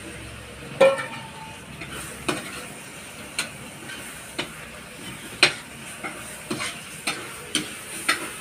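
A steel spoon clacks and scrapes against a metal kadhai as a curry is stirred over a wood fire, in irregular strokes about once a second, the loudest about a second in. A steady sizzle of the frying masala runs underneath.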